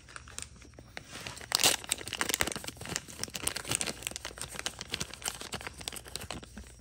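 Dense crinkling and rustling of something being handled, loudest about a second and a half in.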